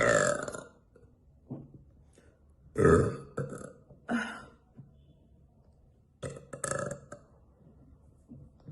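A woman burping several times in a row: a long burp right at the start, two more around three and four seconds in, and a quick double burp near the end.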